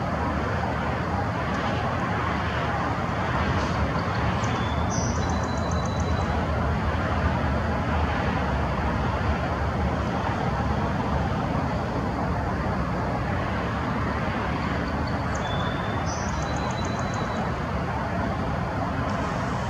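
Steady road-traffic noise, a constant even rumble and hiss with no break.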